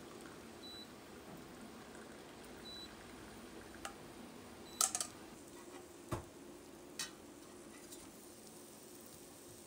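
Milk tea trickling through a stainless-steel mesh strainer into a glass, then a few sharp metallic clinks as the strainer is knocked against the glass, the loudest a quick double clink about five seconds in. A steady low hum underlies it.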